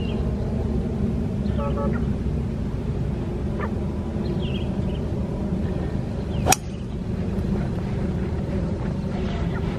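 A single sharp crack of a hybrid club striking a golf ball, about six and a half seconds in, over a steady low background rumble.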